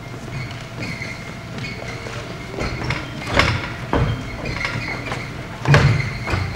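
Footsteps and thumps of children moving about on wooden stage risers, with several sharp knocks, the loudest a little before the end. Under them runs a steady low hum and a faint high whine.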